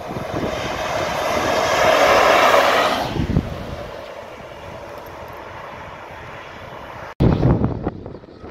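Electric locomotive passing at speed on the main line, a rushing noise of wheels and air that builds for about three seconds and then cuts off. After a quieter stretch of steady background noise, a Class 66 diesel locomotive's engine rumbles near the end.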